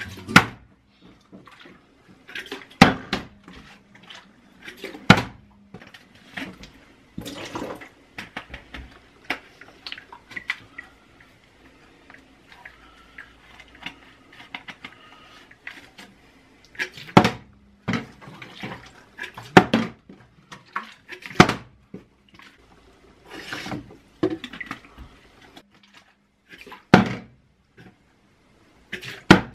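Plastic water bottle, partly filled, being flipped again and again and landing on a kitchen counter: about a dozen sharp thuds and clatters a few seconds apart, with water sloshing inside it. There is a quieter stretch in the middle.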